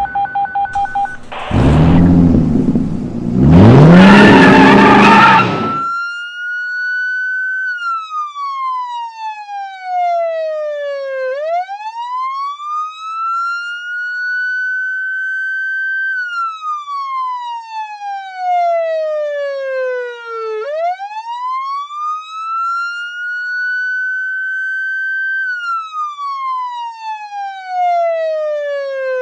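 Rapid electronic beeping for about the first second, then two loud bursts of noise, the second with a low rev rising in pitch. From about six seconds in, a police car siren wails: one clear tone slowly rising and falling, about three cycles.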